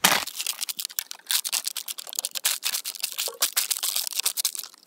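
Plastic bags and plastic litter crinkling and crackling as rubbish is packed into a black garbage bag: a dense, uneven run of sharp crackles.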